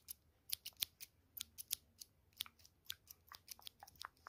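Quick, irregular sharp clicks and snips close to the microphone, several a second, quiet overall.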